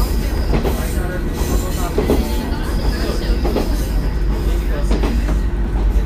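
JR Kyushu Seaside Liner train running, heard from inside the car: a steady low rumble with a knock from the wheels about every second and a half.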